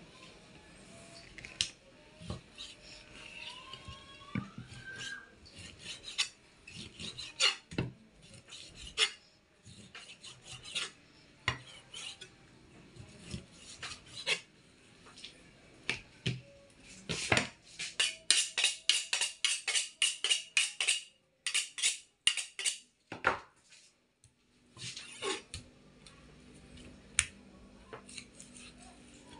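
Kitchen knife cutting pork shoulder into small pieces on a chopping board: irregular knocks of the blade on the board, with a quick run of chopping strokes at about five a second a little over halfway through.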